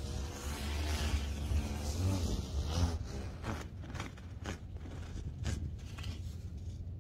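Vital UL stunt kite flying, its sail rushing through the air, with wind rumbling on the microphone. About three seconds in the rumble eases and a run of short, sharp sounds follows.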